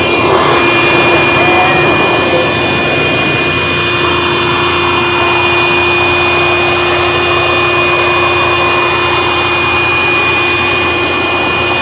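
Cordless handheld vacuum cleaner running with its crevice tool fitted, a steady motor whine with a constant high tone.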